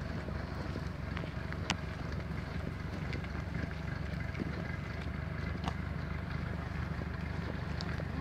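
A tractor engine running steadily ahead as a low rumble, with scattered light clicks of cattle hooves on the asphalt road.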